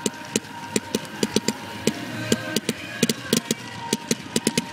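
Fireworks going off in a rapid, irregular barrage of sharp bangs, about four or five a second, as a volley of comet shells with crackling tails shoots up.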